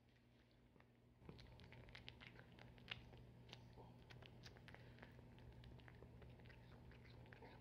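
Faint wet clicks and smacks of a cat chewing and licking up small pieces of cooked fish from a smooth floor, getting busier about a second in, over a low steady hum.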